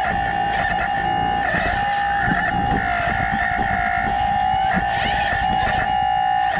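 Steady high whine of an RC excavator's hydraulic pump, its pitch dipping briefly a few times as the machine takes load, with irregular crackling and scraping underneath.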